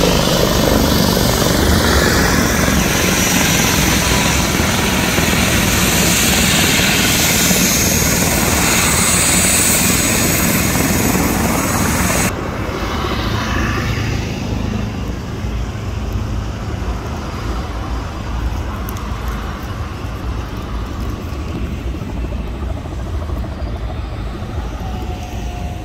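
A helicopter running on the ground with its turbine whining and its rotor turning, loud and steady. About twelve seconds in, the high-pitched part cuts off abruptly and a lower rumble continues.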